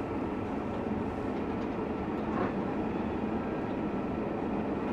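Tractor and carrot harvester running steadily at work.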